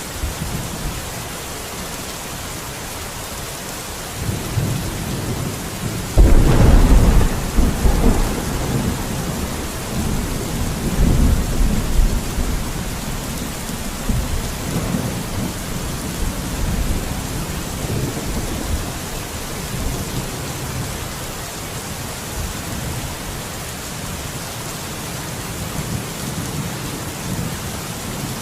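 Thunderstorm: steady rain hissing, with a peal of thunder that starts rumbling about four seconds in, breaks loudest about six seconds in, and rolls on fading over the next ten seconds. A new roll of thunder begins near the end.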